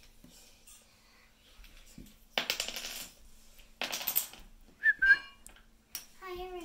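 Small plastic dominoes clattering against each other on a wooden floor in two short rattling bursts, followed by a brief high squeak.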